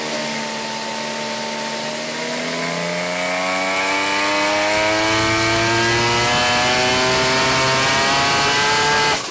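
Turbocharged Mazda 20B three-rotor rotary engine running under load on an engine dyno. It holds steady for about two seconds, then the revs climb steadily and get louder through a power run, and the sound cuts off suddenly near the end.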